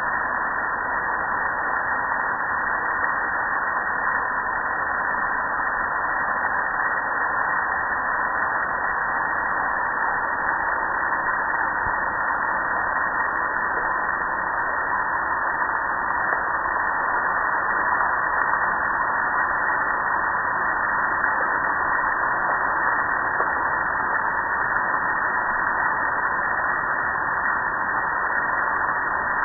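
Steady rush of a water jet spraying onto a gas grill, splashing over its lid and control panel.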